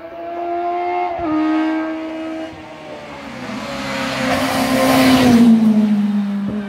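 Race car engine revving hard as it climbs the hill, shifting up about a second in. It passes close by about five seconds in, loudest there, and the engine note drops as it goes away.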